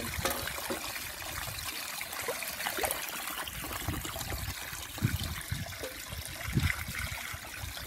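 Water trickling and sloshing in a stone trough as a steel bicycle frame is dipped and rinsed in it, with a few low splashes in the second half.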